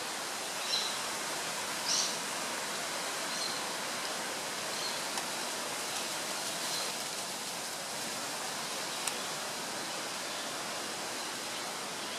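Steady outdoor background hiss, with a few faint, brief high chirps over it in the first half and two short clicks.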